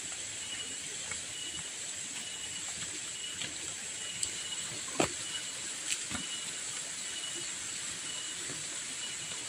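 Forest insects: a steady high buzz with a short chirp repeating about every three-quarters of a second. A few sharp clicks from walking on the path stand out, the loudest about five seconds in.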